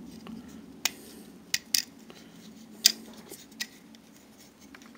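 Hard plastic parts of a Transformers figure clicking and snapping as its joints are turned and pieces clipped into place by hand: about six sharp clicks, the loudest near three seconds in.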